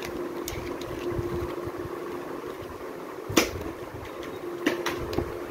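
Children's paperback and board books handled in a cardboard box: pages flipped and books picked up and set down, with one sharp knock about three and a half seconds in and a few lighter taps after it. A steady low hum runs underneath.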